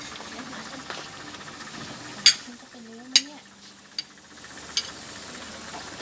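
Metal spoons and forks clinking sharply against ceramic plates, four separate clinks, over a steady background hiss.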